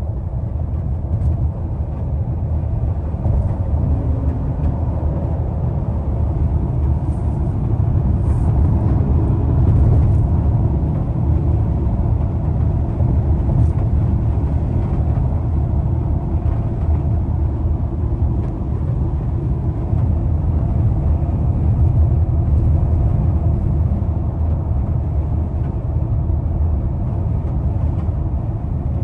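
Cabin noise of a 2023 Ford Explorer speeding up to highway speed: a steady low rumble of road and wind noise that grows a little louder over the first ten seconds.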